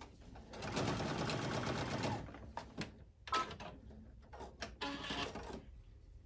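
Baby Lock Ellisimo computerized sewing machine stitching bias tape onto the edge of a cotton mask: a fast, even run of stitches lasting about a second and a half, then stopping. This is followed by a few sharp clicks and shorter bursts as the machine stops and the fabric is handled.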